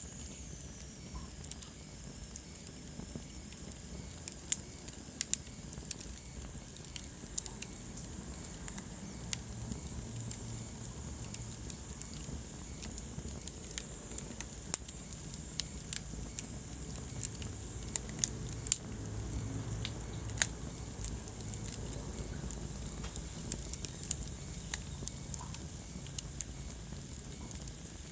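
Wood fire burning in a fireplace: a low steady rumble of the flames with irregular sharp crackles and pops from the burning logs.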